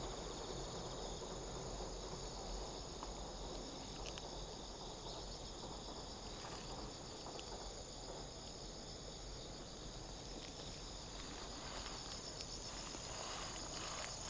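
Chorus of insects, likely crickets, trilling steadily in a continuous high pulsing drone over a low outdoor rumble, with a few faint clicks near the end.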